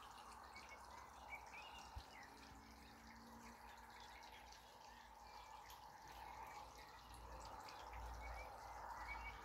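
Near silence: faint outdoor ambience with scattered faint high chirps. A low wind rumble on the microphone grows louder near the end.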